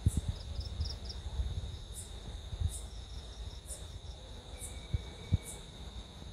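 Night insects, crickets, calling: a steady high trill with short, higher chirps repeating roughly once a second. A few brief low thumps, the loudest near the start and about five seconds in.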